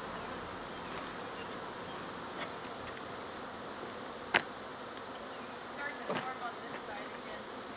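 A swarm of bees buzzing in the air, a steady hum. One sharp click cuts through it a little past the middle.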